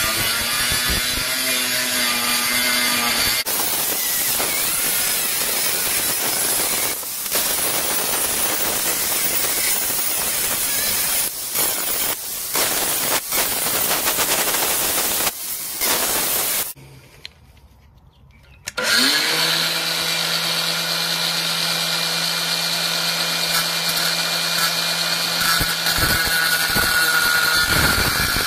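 Angle grinder with a thin cutting disc cutting into a cast aluminium engine sump: a harsh, steady cutting noise over the motor's whine. About two-thirds of the way through it goes much quieter for about two seconds, then the grinder spins up again and runs with a steady whine.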